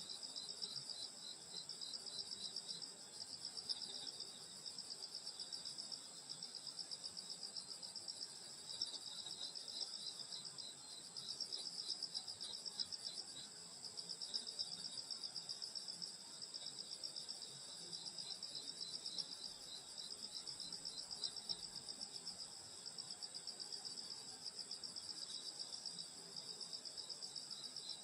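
A chorus of summer grass insects, crickets and the like, trilling without a break. Several high-pitched layers overlap, one with a rapid pulsing chirp.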